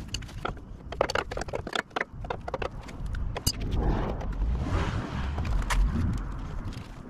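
A run of small metallic clicks and clinks from parts being handled, then a longer rubbing sound about halfway through as a rag wipes down the grimy metal underside of the truck.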